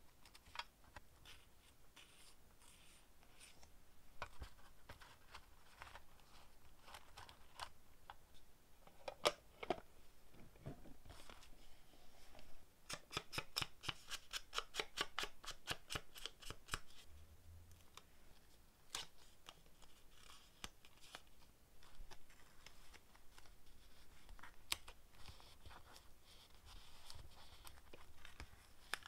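Close-up paper handling: slips of paper rustling and clicking as they are sorted and picked out of a metal tin, with a quick run of light taps, about seven a second, around the middle as an ink dauber is dabbed on a paper slip.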